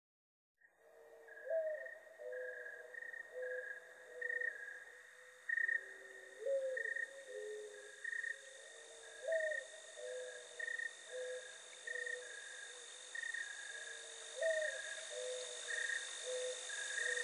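Quiet, slow instrumental background music that starts about a second in: held low notes, some sliding upward, over a regular two-note figure higher up and a steady high hum.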